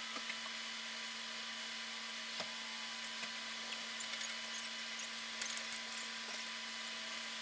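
Steady hiss with a constant low hum and a fainter higher steady tone, broken by a few faint scattered clicks.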